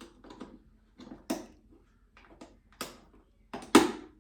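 Sharp plastic clicks and knocks from a battery-operated wall clock being handled as an AA battery is pressed into its battery compartment: about four separate knocks, the loudest near the end.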